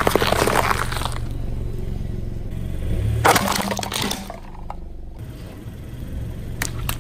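Car tyre rolling over and crushing brittle items: two bouts of crunching and crackling, one at the start and one about three seconds in, over the car's low engine hum. A few sharp cracks near the end.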